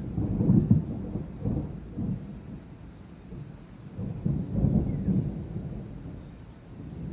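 Thunder rumbling in rolling peals: a deep rumble carries on and fades, then swells again about four seconds in before dying away.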